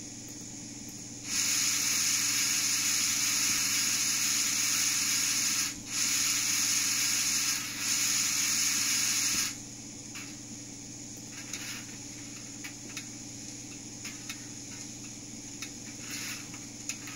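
Steam hiss played by an ESU LokSound V4.0 sound decoder in a Fleischmann BR 23 N-scale steam locomotive: one long hiss of about four seconds starting about a second in, then two shorter hisses in quick succession, followed by a few faint clicks.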